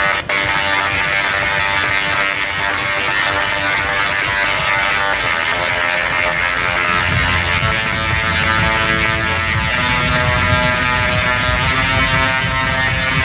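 Very large high-voltage spark generator, called a Van de Graaff generator, discharging with a loud, steady pitched buzz over a crackling hiss. It starts abruptly.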